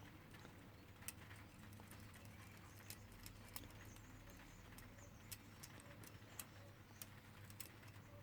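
Faint, irregular small clicks and scrapes of a lock pick working the pins of a Paclock six-pin padlock under tension from a wrench. The crunchy feel is taken by the picker as a sign of serrated pins inside.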